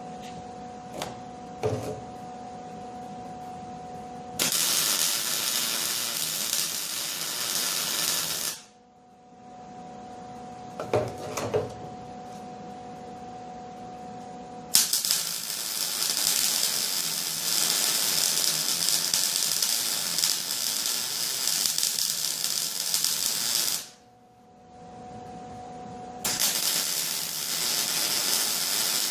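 Stick welder's arc crackling and hissing on steel in three long runs, about 4 s, 9 s and 3 s, as weld-on hinges are welded. Between the runs there is a steady hum and a few sharp clicks.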